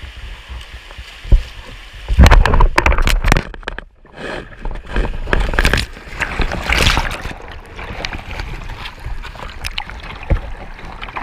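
River rapid water crashing and splashing over a kayak as it hits rough water, surging hard twice a few seconds in, then churning and sloshing; the kayak is taking on water.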